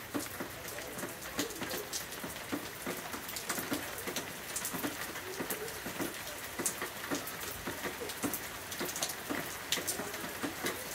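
Hail mixed with rain falling on a wet concrete patio and bare soil: a steady patter dotted with many sharp, irregular ticks of pellets striking.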